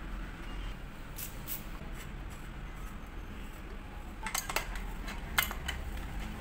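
Metal hand tools clinking against a bicycle crank arm as a crank puller and wrenches are fitted to pull the crank: a couple of light clicks about a second in, then a cluster of sharper clinks between about four and five and a half seconds.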